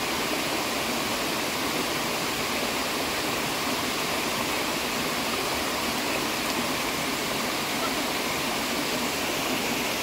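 Water rushing over rocks at a forest waterfall, a steady, unchanging rush.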